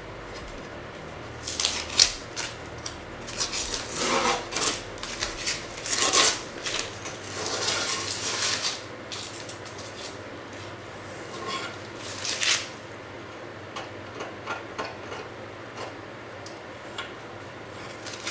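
Hard parts being handled and fitted together: a run of short knocks, clatters and rubbing scrapes over the first twelve seconds, then only scattered faint ticks.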